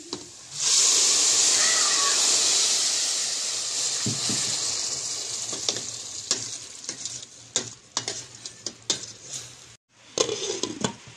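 Tomato added to a pan of toasted rice in hot oil, starting with a sudden loud sizzle that slowly dies down over several seconds. A spoon knocks against the pan now and then as it is stirred.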